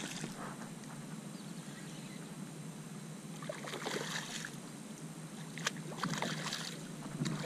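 A hooked redfish (red drum) thrashing at the water's surface beside the boat, splashing about halfway through and again near the end, over a steady low hum.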